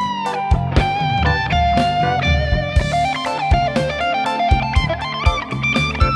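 Electric guitar playing a singing lead melody of long held notes with slides and bends, through a Fractal Axe-Fx III amp model with delay. Underneath are steady drum hits and a bass line.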